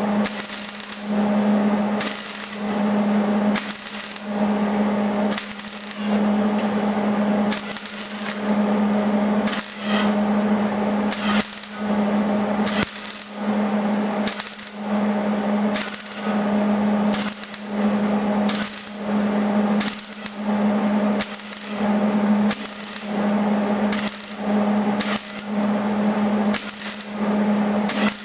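MIG welder laying short stitch welds on sheet-metal bodywork: a dense crackle in brief bursts about once a second, with short pauses between, over a steady electrical hum.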